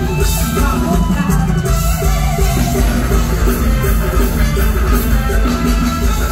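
Loud live Thai luk thung band music with a steady drum-kit beat, heard through a concert PA system.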